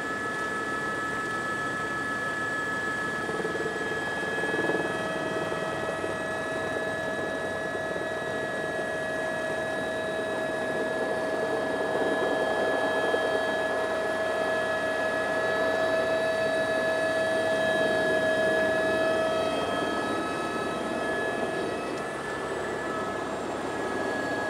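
Tour helicopter running in flight: a steady turbine whine made of several constant high tones over the noise of the engine and rotors.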